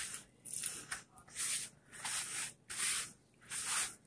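A hand mixing crumbly pie dough of flour, shortening and water in a plastic bowl: a steady series of about six gritty rubbing strokes, roughly one and a half a second, as the water is worked into the dough.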